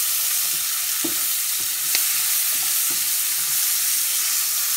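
Sliced onion sizzling steadily as it fries in butter in a stainless steel pan. A few faint knocks come through, with one sharper click about two seconds in.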